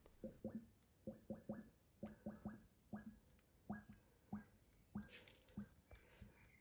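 Faint, irregular glugs of transmission oil being poured slowly from its bottle into a funnel, about two a second, as air bubbles back into the bottle.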